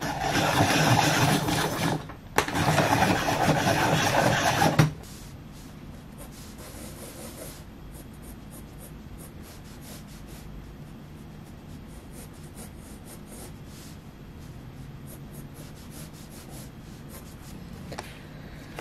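Loud rubbing for about the first five seconds, broken briefly about two seconds in, then faint scratching of light coloured-pencil strokes on sketchbook paper.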